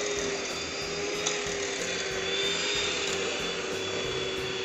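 Electrolux electric hand mixer running steadily, its beaters whisking eggs and sugar in a stainless steel bowl: a steady motor whine.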